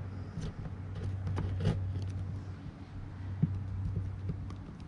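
Knife point scraping and cutting through a thin sheet, with a few short sharp clicks and rustles as the sheet is handled, over a steady low hum.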